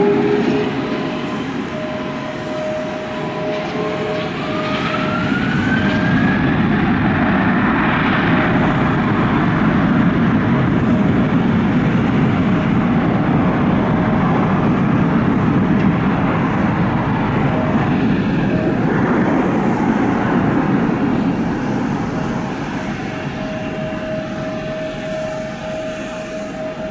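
Jet airliner taking off under full thrust: a loud, steady jet roar with a whine that rises in pitch over the first several seconds, fading away over the last several seconds.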